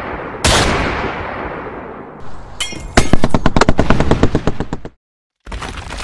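Sound-effect gunfire: a single loud shot with a long fading tail, then a rapid automatic burst of about ten shots a second for nearly two seconds that stops abruptly. After a brief dead silence, a crashing rumble starts.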